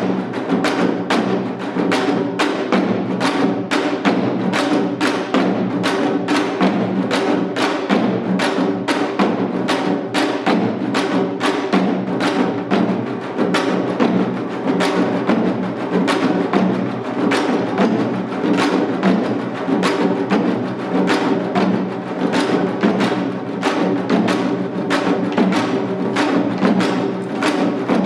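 Janggu (Korean hourglass drum) playing in seated seoljanggu style: a fast, steady rhythm of sharp stick strokes, densely filled in between the main beats.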